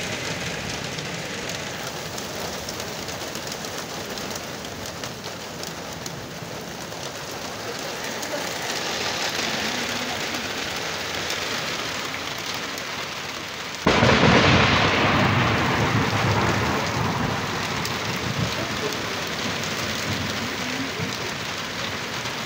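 Heavy rain falling steadily during a thunderstorm. About fourteen seconds in, a sudden loud thunderclap breaks out and rumbles away over several seconds.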